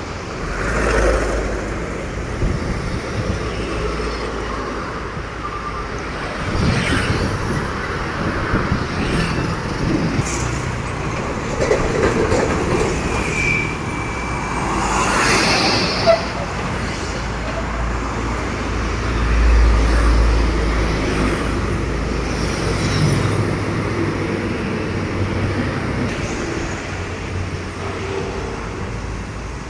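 Heavy road traffic passing close by: large trucks' engines and tyres, with a deep rumble that swells and fades as each vehicle goes past.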